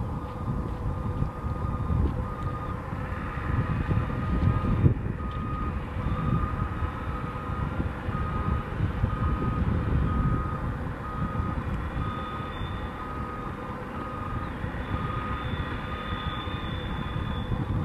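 Aircraft tow tractor's back-up beeper sounding repeated short beeps, about three every two seconds, over a low rumble while it tows an Airbus A220-300.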